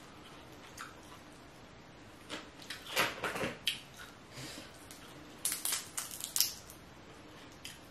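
A boiled crawfish's shell cracking and crackling as it is peeled apart by hand. The cracks come in short clusters, one about three seconds in and another about six seconds in.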